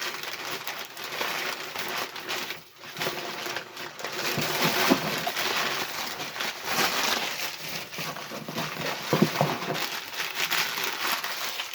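Packaging being handled and unwrapped, a steady crinkling rustle of paper and plastic wrapping around small Scentsy wax packs.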